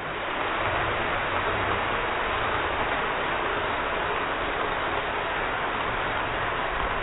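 N gauge model train running on the layout track: a steady rushing rattle of wheels and motor that swells up at the start and then holds.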